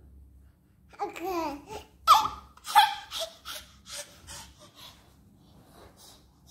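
Baby boy, about eleven months old, laughing: a high squeal about a second in, two loud bursts of laughter, then a run of shorter laughs that fade away.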